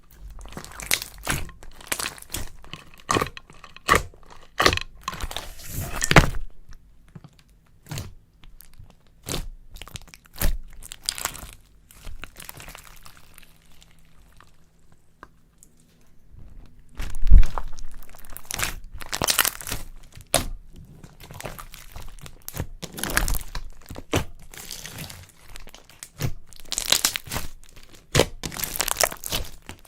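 Slime being squeezed and worked by hand, giving dense, irregular crackling and crunching clicks, with a quieter lull partway through and the loudest crunch a little after the middle.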